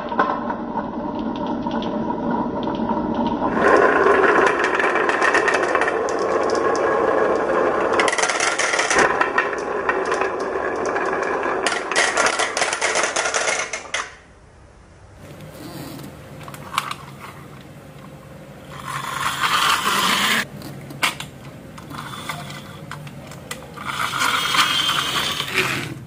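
Marbles rolling and clattering down a toy marble run, a dense steady rattle of many small clicks for about the first fourteen seconds. After that it is quieter, with two shorter louder runs of rolling and clicking, the last near the end.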